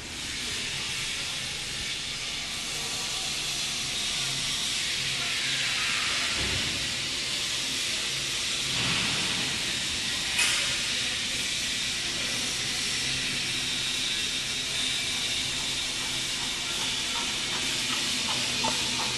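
A steady hiss with one sharp click about ten seconds in.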